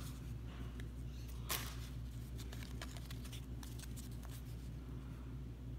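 Baseball cards being flipped through and slid against one another by hand: soft scattered rustles and light clicks, with one louder swish about a second and a half in, over a steady low hum.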